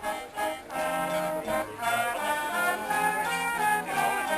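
Music led by brass instruments, with trombone and trumpet-like notes following one another.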